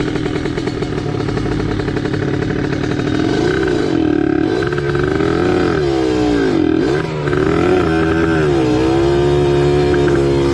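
Motorcycle engine running, its pitch rising and falling over and over with throttle blips, with a sharp dip about seven seconds in, then holding a steady note near the end. Its exhaust note is the throaty 'ngorok' ('snore') sound riders prize.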